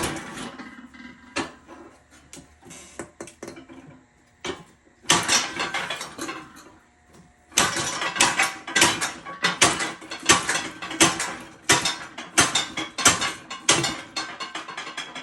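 Metal tire tools and a manual tire changer clanking and scraping as a tractor tire is worked onto its rim, with rapid knocks several times a second, heaviest in the second half.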